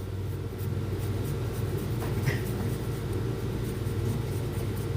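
A steady low hum with a few faint, light ticks and scrapes over it.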